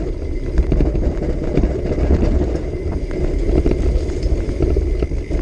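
Santa Cruz Bullitt mountain bike running fast down a rocky gravel trail: tyres crunching over stones, with many quick rattles and clacks from the bike as it bounces, over a steady rumble of wind on the microphone.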